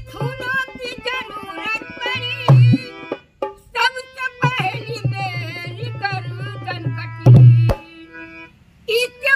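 Indian folk song: a woman's voice singing over a hand-pumped harmonium, with a dholak barrel drum beating deep bass strokes. The drum strokes are loudest about two and a half seconds in and again near the end, and the music dips briefly just before the end.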